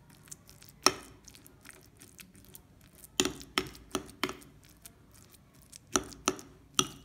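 A metal spoon knocking and scraping against a bowl while mashing boiled chana dal: sharp, irregular clinks, one about a second in, a run of four quick ones a little after the middle, and three more near the end.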